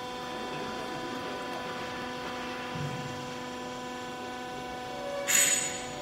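Steady electrical machine hum, with a short noisy burst near the end.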